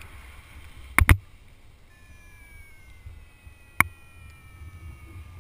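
Wind rushing over a paraglider pilot's camera microphone, with a sharp double click about a second in and another click near four seconds. From about two seconds in, a faint variometer tone sounds and slowly falls in pitch as the sink rate builds at the start of a B-stall.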